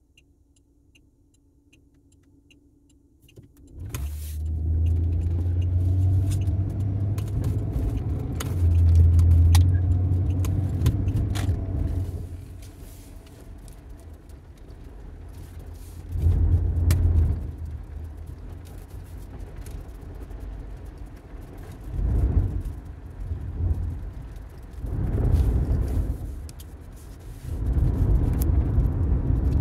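Thunder heard from inside a car in a rainstorm: a sharp crack about four seconds in, then a deep rumble lasting several seconds, followed by three or four shorter rolls.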